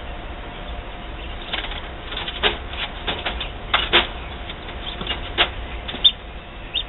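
Newly hatched chicks peeping inside an egg incubator: a scatter of short, sharp high calls over the steady hum of the incubator, with two brief chirps near the end.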